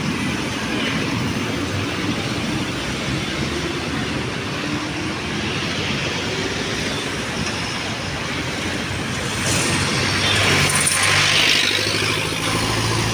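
Steady city road traffic, cars and engines running past, with one vehicle passing louder and closer, its engine hum rising about ten seconds in.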